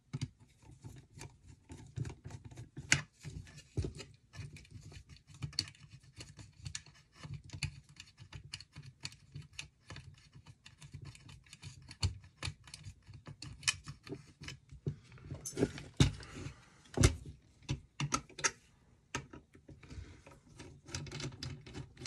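Screwdriver turning screws out of a vintage ITT rotary telephone's metal chassis, with the phone's small parts being handled: a run of irregular small metallic clicks and ticks and a few sharper knocks about two-thirds of the way in.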